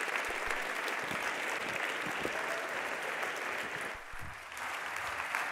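Conference audience applauding steadily, a dense patter of many hands clapping, dipping briefly about four seconds in.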